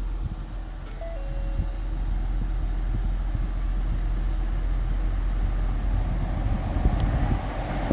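Ford SHO idling, heard from inside the cabin, with the climate-control fan blowing air; the air rush grows louder from about six seconds in. A short two-note electronic beep sounds about a second in.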